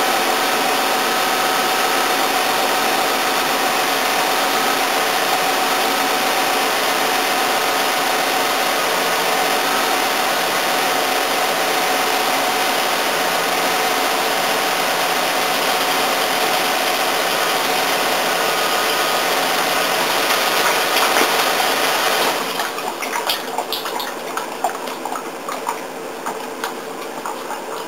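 Toyota Camry V6 engine running steadily. About three-quarters of the way through, the steady sound drops away, leaving scattered light clicks and rattles.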